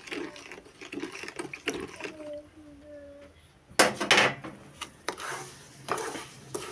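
A spoon stirring sugar into water in a plastic bowl to dissolve it for syrup, scraping round in a quick rhythm. A loud clatter comes about four seconds in, followed by scattered light knocks.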